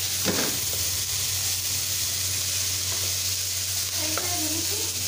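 Chopped cabbage, capsicum and onion sizzling in oil in a wok while a spatula stirs them, with a scrape against the pan just after the start. A steady low hum runs underneath.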